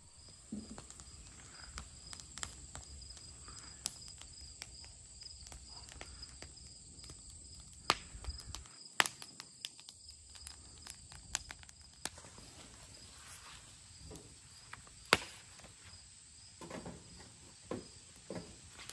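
Wood fire in a fire pit crackling, with scattered sharp pops, over a steady high-pitched insect drone. In the last few seconds, footsteps on grass and soft knocks as someone works at the fire pit.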